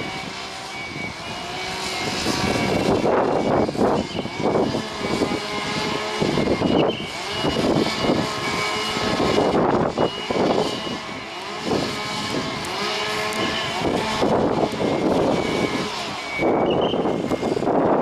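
Heavy truck diesel engine running and revving up and down in several surges as a tractor unit manoeuvres a long flatbed semi-trailer in reverse.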